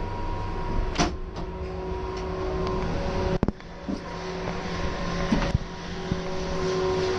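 Gondola station machinery running with a steady hum and whine over a low rumble, with a few knocks and clatters as the cabin moves through the terminal; the sharpest knock comes about three and a half seconds in.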